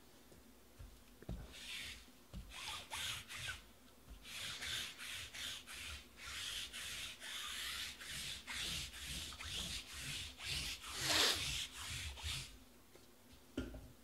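Trading cards sliding and rubbing against one another as a stack is thumbed through, a run of short swishing strokes about two a second, the loudest near the end.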